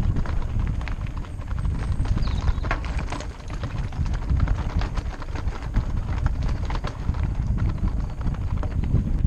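Mountain bike clattering over rough, rocky trail: many irregular sharp knocks and rattles from the bike and tyres hitting stones, over a constant low rumble of bumps and wind on the mounted camera's microphone.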